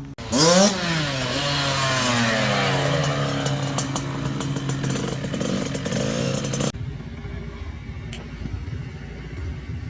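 Kawasaki KX65's small two-stroke single-cylinder engine revving during a test ride after a chain adjustment, its pitch rising and falling with a loud burst about half a second in. Near the seven-second mark it cuts off abruptly to a faint low rumble.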